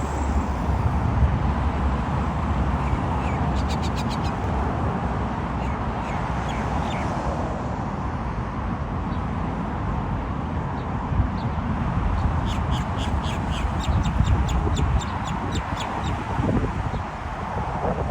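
A small songbird singing in bursts of quick, high chirps: a short fast run about four seconds in, scattered single notes, then a longer even series of notes past the middle. Heavy wind rumble on the microphone runs underneath.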